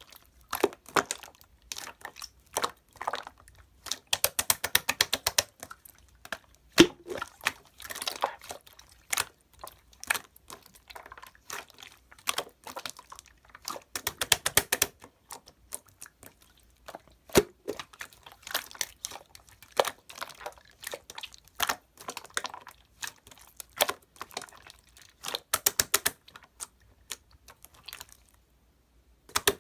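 Clear, jelly-like slime being worked by hand, squished and pressed so that it gives quick runs of small wet clicks and pops, with short pauses between the runs.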